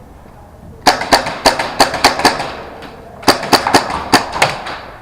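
Airsoft gun firing two strings of rapid shots, about six or seven sharp cracks each, with a short pause between them; each shot echoes briefly.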